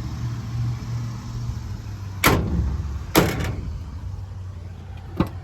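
Truck engine idling with a steady low hum, with two loud clunks about two and three seconds in and a lighter one near the end.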